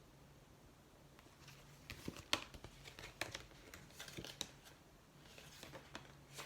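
Paper rustling and crinkling with a few sharp clicks, as the pages of a picture book are handled and turned; it starts about a second and a half in.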